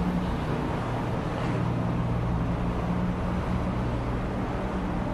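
Steady road traffic noise with the low, even hum of an idling engine.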